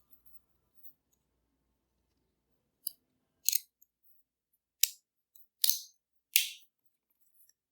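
Scissors snipping five times at uneven intervals, cutting away the old, degraded headband.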